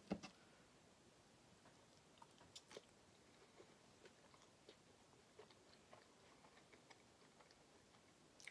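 A person chewing a mouthful of cheese-sauce-covered fries, with faint wet mouth clicks. A fork knocks sharply against a metal baking sheet right at the start, and there is another small click near the end.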